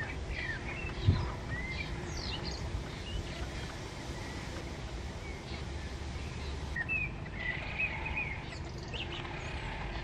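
Small birds chirping in short, scattered calls over a steady low outdoor rumble, with a brief low thump about a second in.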